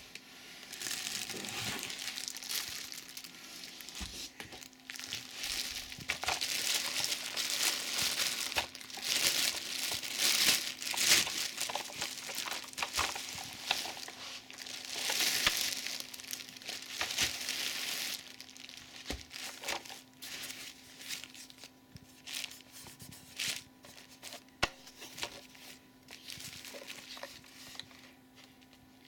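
Plastic packaging and bubble wrap crinkling and rustling as vacuum cleaner parts are unwrapped, with sharp crackles; busy for the first two-thirds, then thinning to occasional rustles.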